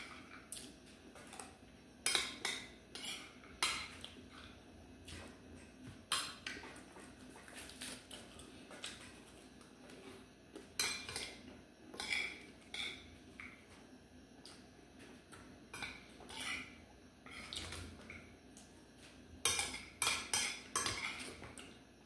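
Metal spoon clinking and scraping against a glass soup bowl as soup is spooned up, in irregular clusters of sharp clinks every few seconds.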